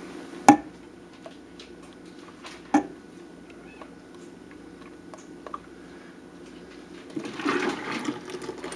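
Two sharp metal clinks of a saucepan against a stainless steel stock pot, over a low steady hum, then near the end a stream of hot cream poured into egg yolks and sugar in the pot.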